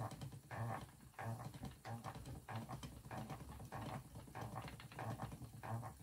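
Wooden treadle spinning wheel running steadily, its treadle and wheel action repeating in a regular rhythm about twice a second while merino fibre is drafted onto the flyer.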